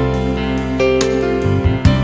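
Instrumental background music, with notes struck in quick succession over sustained tones.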